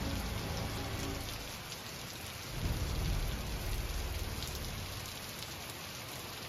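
Heavy rain falling steadily, with a low rumble of thunder that swells about two and a half seconds in and slowly fades.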